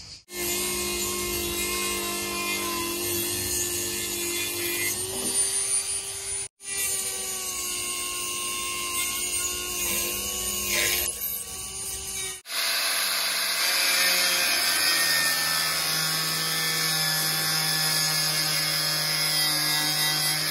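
Power tools running steadily, each with a steady whine over a hiss, in three separate stretches that cut off abruptly about six and twelve seconds in.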